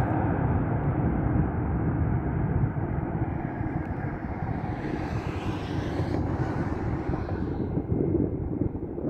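Jet airliner's engines on final approach, a steady low rumble that drops a little about three seconds in as the plane draws away toward the runway, with a passing rise of hiss around the middle.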